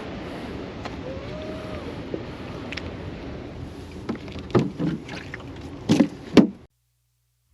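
Steady rush of wind and spillway water, with several sharp knocks and clatters in the last few seconds before the sound cuts off suddenly.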